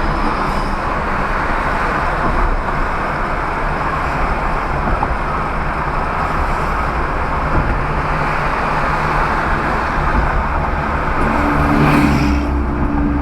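Steady vehicle and road noise, like a car running along a road in traffic.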